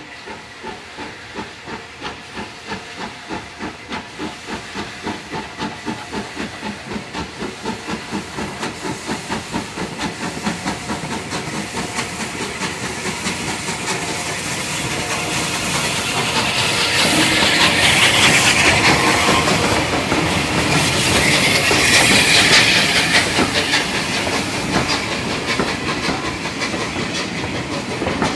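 Bulleid Battle of Britain class Pacific No. 34072 '257 Squadron', a three-cylinder steam locomotive, working a train away with a regular chuffing exhaust beat that quickens and grows louder as it nears. Loud hissing steam comes as it passes, about halfway through, and then the coaches roll by.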